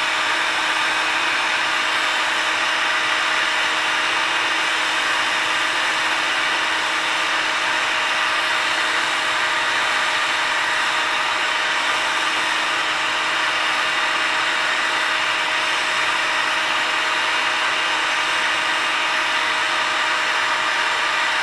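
Hot-air heat gun running steadily, blowing hot air onto a strip of PVC to soften it for bending: a constant rush of air with a steady motor hum.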